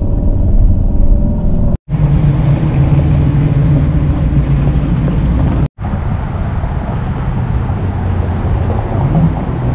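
A car's engine and road noise heard from inside the moving car, a steady low drone. The sound cuts out for an instant twice.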